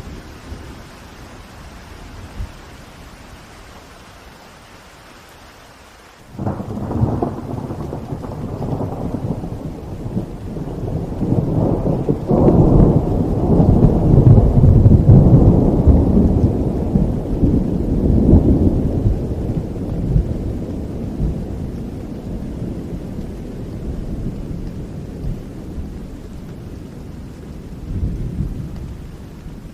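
Steady rain falling. About six seconds in, thunder breaks in suddenly: a long, low rumble that builds to its loudest around the middle, then slowly rolls away, with a smaller swell near the end.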